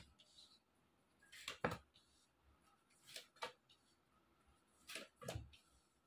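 Tarot cards being dealt one at a time onto a cloth-covered table: faint card snaps and taps, one at the start and then three pairs about a second and a half apart.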